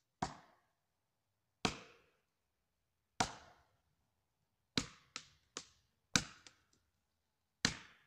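Sharp, ringing hammer blows driving a felling wedge into the cut of a standing tree: about eight strikes, a second and a half apart at first, then quicker in the middle. The wedging is tipping a back-leaning tree over toward the wanted side.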